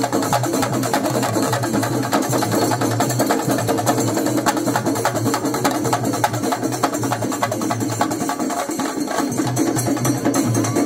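Festival drum troupe playing a fast, dense run of drum strokes without a pause.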